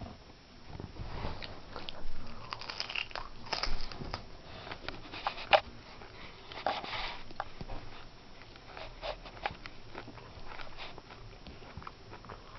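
Hermann's tortoise biting and tearing at a Chinese cabbage leaf: a run of irregular crunches and snaps, busiest through the middle, with one sharp snap about five and a half seconds in.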